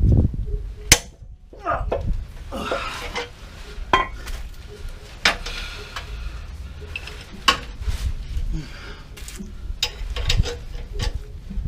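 Metal tools and car suspension parts clinking and knocking in scattered sharp strikes, over a low steady background rumble.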